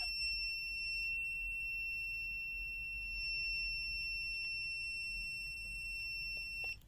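YEUDA YD21 multimeter's continuity beeper sounding one steady, high-pitched tone with its test leads shorted together, cutting off suddenly near the end.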